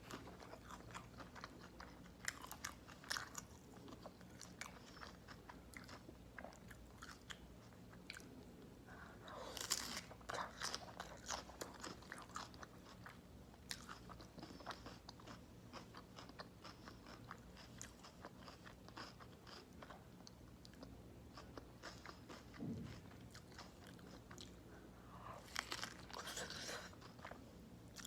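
Close-miked chewing with crisp, crunchy bites of a homemade beef burger wrapped in raw cabbage leaves. Louder crunching comes about ten seconds in and again near the end.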